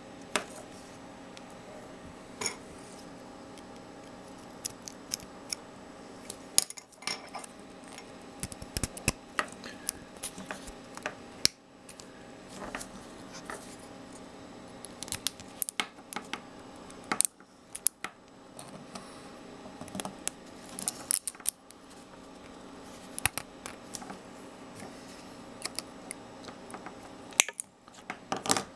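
Hands handling small 3D-printed plastic arm parts: scattered sharp clicks and taps as a steel ball end and a filament pin are fitted into a printed rod, over a steady low hum.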